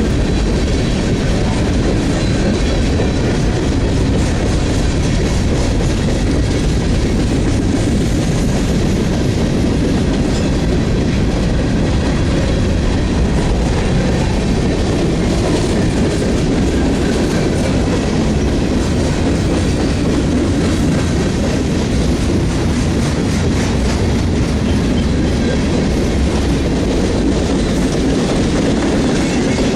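Freight train cars rolling past, steady loud rumble and rattle of wheels on the rails.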